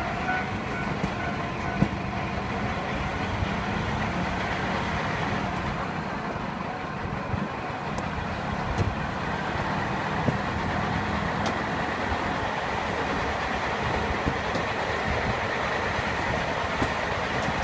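A JR Hokkaido KiHa 40 diesel railcar running, heard from inside the car: a steady rumble of engine and wheels on rail, with scattered clicks from the track joints.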